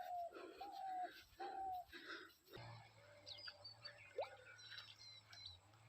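Faint dove cooing, a few short, slightly falling coos in the first couple of seconds, then small birds chirping high over a steady low hum that starts about halfway through.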